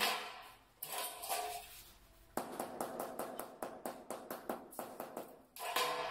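Rubber mallet tapping a large marble floor tile to bed it level in the mortar: a quick run of short, light knocks through the middle, with heavier knocks near the end. Early on the aluminium straightedge is set down and slid on the tile, giving a knock and some scraping.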